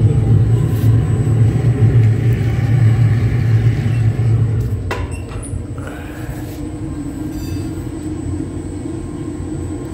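Homemade waste-oil burner stove burning with a deep, steady rumble of the oil flame, loud for the first four seconds or so. A sharp metal clank comes about five seconds in, and the rumble then drops to a quieter steady hum.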